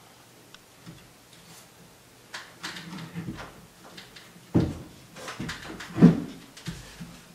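Slate ledger stone pieces being handled and pressed onto the wall: scraping and rustling of stone against the wall, with a few dull knocks, the loudest about four and a half and six seconds in.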